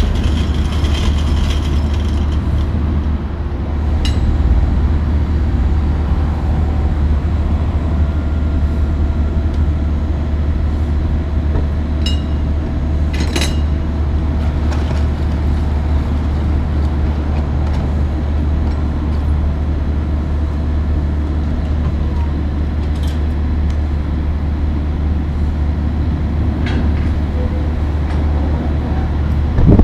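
Heavy diesel of a parked semi-truck idling with a steady low hum, with a few sharp clanks from unloading at the trailer's rear, the loudest about halfway through.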